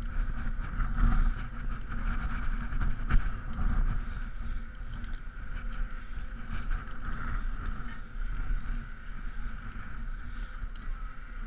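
Steady rumbling background noise with scattered light clicks and clinks of carabiners and rope rigging being handled on a climbing belt.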